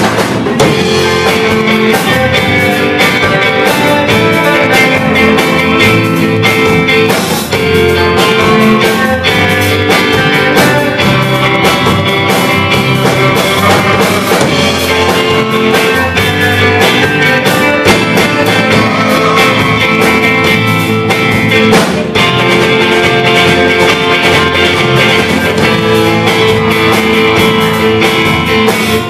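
Live rock band playing loudly: two electric guitars, electric bass and a drum kit.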